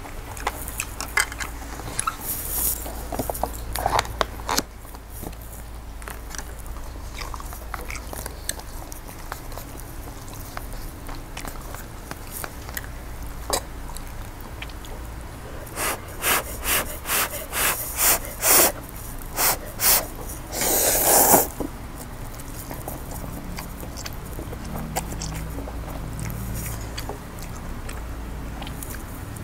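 Close-up eating sounds: a person chewing and slurping spicy noodles and rice cakes, with chopsticks clicking against a glass dish. About halfway in comes a run of sharp smacks about two a second, then a louder slurp lasting about a second.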